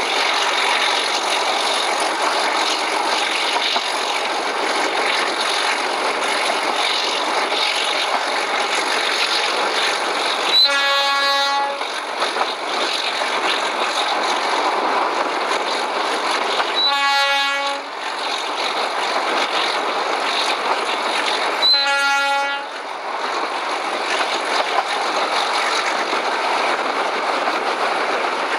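Diesel-hauled train running steadily, heard from beside the carriage side, with the horn of the OSE class A.201 Alco RS-8 locomotive sounding three short blasts, each about a second long and some five to six seconds apart.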